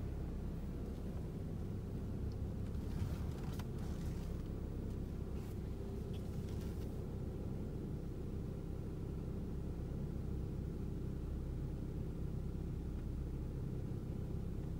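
Steady low rumble heard inside the cabin of a Honda Civic LX, its four-cylinder engine running as the car creeps slowly in reverse.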